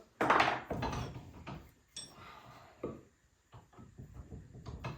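A wooden marking gauge being set and tightened by hand: a loud scraping slide near the start, then scattered small clicks and light knocks of wood and metal.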